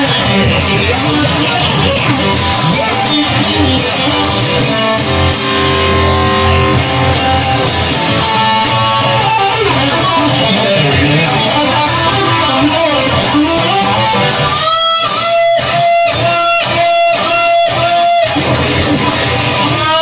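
Instrumental break of a blues-rock song: an electric guitar lead with held and bending notes over bass and drums. About three-quarters of the way through, the band plays a run of short, choppy stabs before the full groove comes back.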